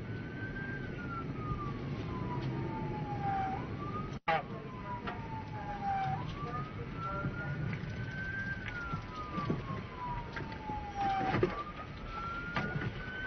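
Police car siren wailing, its pitch sliding slowly up and then down over and over, above the low rumble of patrol cars on the road. The sound drops out for an instant about four seconds in.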